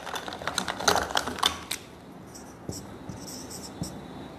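Writing on a board: a quick run of scratchy strokes and taps for the first second and a half or so, then fainter, high-pitched strokes.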